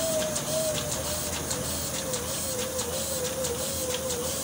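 Small offset printing press running: a steady mechanical hiss and hum with a faint wavering tone, and light clicks repeating about three times a second with the machine's cycle.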